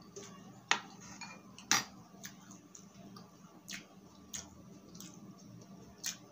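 Metal spoon and fork clicking and scraping against a plate in a close-miked eating show: several sharp, irregular clinks, the loudest about two seconds in.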